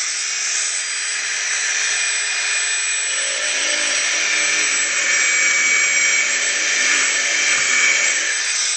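HP35P enamel wire stripper running with a steady, high whirring noise as it strips enamel from the narrow edges of a rectangular wire sample. A lower hum joins about three seconds in and drops away near the end.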